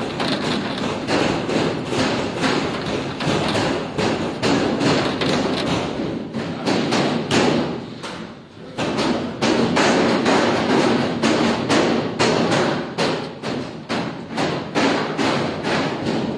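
Noodle dough being worked and slapped down on a stainless steel table: a rapid run of dull thuds, about three to four a second, that pauses briefly partway through.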